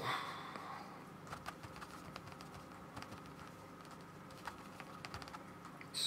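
Brush dabbing and tapping white gouache onto paper: a brief rustle at the start, then a run of light, irregular taps, several a second.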